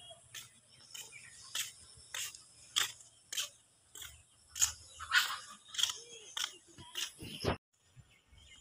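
Footsteps in plastic slide sandals on a brick-paved path, at a steady walking pace of about three steps every two seconds, each step short and sharp. The steps stop suddenly about seven and a half seconds in.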